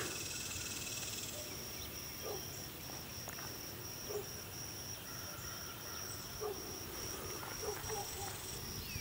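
Insects chirping in a steady high-pitched pulse, about three pulses a second, with a few faint short sounds lower down.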